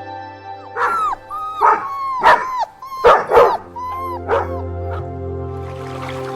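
A dog barking about six times in short, pitched barks, over steady background music.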